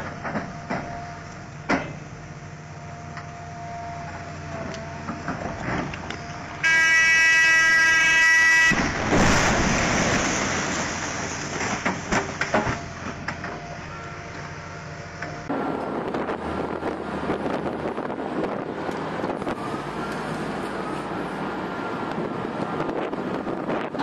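Heavy quarry machinery engine running with scattered knocks of stone. About seven seconds in, a loud steady horn sounds for about two seconds. It is followed at once by a loud rumbling blast that dies away over several seconds, a rock blast throwing up a cloud of stone dust. In the second half, another machine's engine runs under wind noise.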